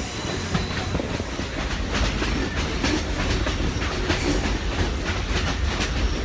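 Passenger train running along the track, heard from on board: a steady low rumble with wheels clicking irregularly over the rails.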